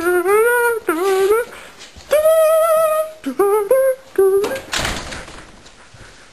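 A person humming a melodic tune in short, sliding sung notes, which stops about four and a half seconds in, followed by a brief burst of noise.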